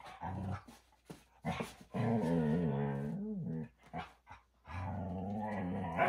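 Standard poodle growling in play: a short growl, then two long wavering growls, one about two seconds in and one from near five seconds on. Short scuffling knocks come in between.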